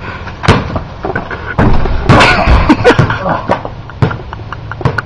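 Wind buffeting the microphone, with a run of sharp knocks and thumps on a concrete driveway and some laughter; the loudest, rumbling stretch comes in the middle.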